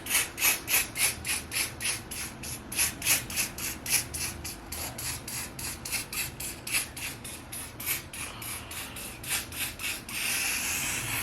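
Quick, even rubbing or brushing strokes against hair, about four a second. About ten seconds in they give way to the steady hiss of a spray can being sprayed.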